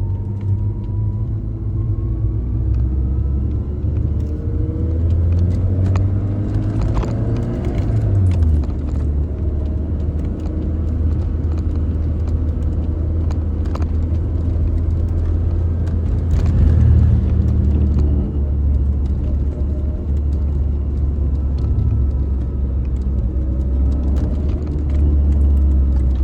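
Lancia Delta HF Integrale Evoluzione I's turbocharged four-cylinder engine and tyre rumble while driving, a steady low drone with the engine note rising and falling several times as the revs change.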